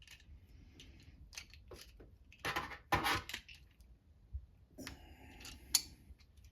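Small metal hand tools clicking and scraping as a pair of pliers grips and bends the bent handle of generic locking pliers, with a couple of louder clanks about three seconds in and a short metallic squeak about five seconds in.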